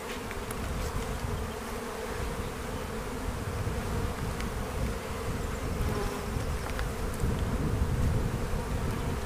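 Honeybees humming steadily around an open hive, a calm colony showing no defensive agitation.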